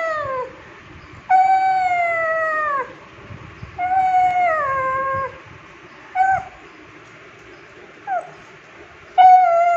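Old pug whining for attention: long drawn-out cries that sag in pitch at the end, each about a second and a half, with two short yips in between and another long cry starting near the end.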